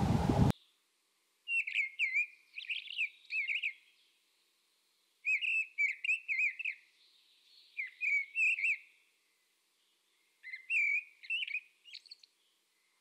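A rush of wind-like noise cuts off abruptly about half a second in, followed by a songbird singing four short phrases of quick, swooping whistled notes, separated by pauses of one to two seconds.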